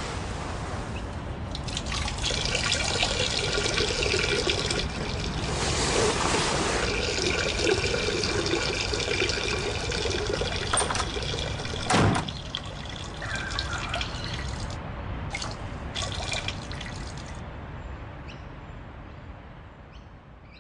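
A stream of urine splashing into a toilet bowl, a person urinating standing up through a funnel. It starts about a second and a half in, with one sharp knock midway, then breaks into a couple of short spurts and fades out.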